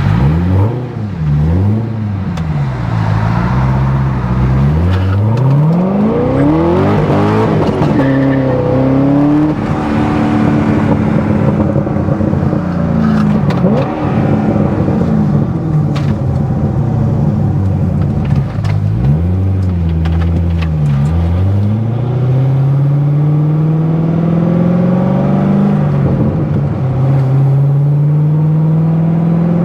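C6 Corvette Z06's 7.0-litre LS7 V8 under hard acceleration. Revs climb and drop back at each upshift in quick succession early on and again about two-thirds of the way in, then climb in one long steady pull near the end.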